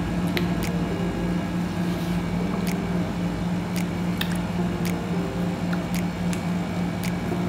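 Wet mouth sounds of someone eating an ice pop: sucking and light smacking clicks scattered through, over a steady low hum.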